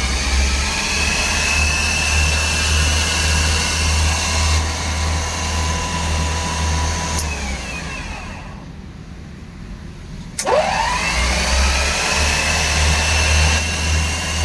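Repaired 24-volt alternator spun by an electric motor for a test run: it runs at speed with a steady whine over a low hum, winds down about seven seconds in, and after a quieter spell a click about ten seconds in starts it spinning up again with a rising whine.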